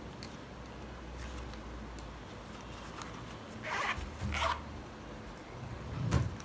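Zipper of a small round earphone case pulled shut in two quick strokes, about four seconds in. Near the end comes a dull thump, the loudest sound.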